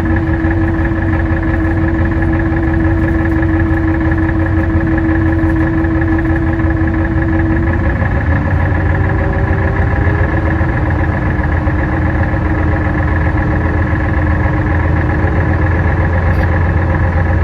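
Tour boat's engine running steadily with a loud low drone and a hum of steady tones; the engine note changes slightly about eight seconds in.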